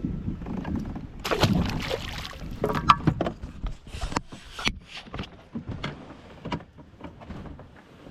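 Irregular knocks, clicks and rustling aboard a fishing kayak, loudest in the first few seconds, with a few sharp clicks later on.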